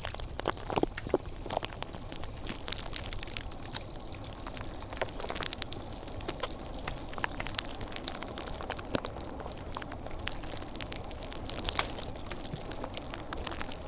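Calming ambient noise track: a steady low rumble and hiss scattered with irregular sharp crackles and ticks.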